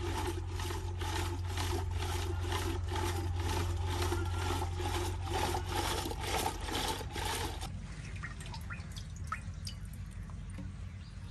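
Rhythmic liquid sloshing, about three strokes a second, over a steady hum; it stops abruptly about eight seconds in, leaving a few faint clicks.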